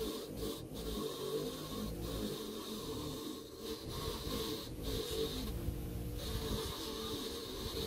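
Electric bench grinder running, its wire wheel scraping and rasping against a small metal part held to it to brush off rust, in short passes with brief breaks as the part is turned.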